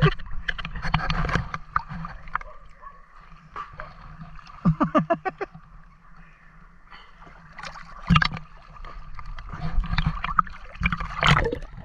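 Water sloshing and gurgling around a swimmer at the river surface, with sharper splashes about eight and eleven seconds in.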